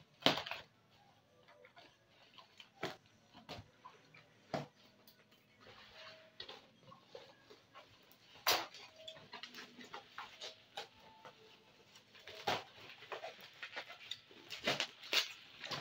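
Plastic mailer bag and bubble wrap being handled and pulled apart by hand: irregular crinkling with sharp crackles. The loudest come just after the start, about eight and a half seconds in, and around twelve and a half seconds.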